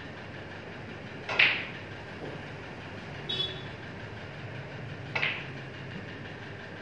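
Snooker balls clacking: two sharp clicks, the loudest about a second and a half in and another about five seconds in, over a steady hum of the hall's fans.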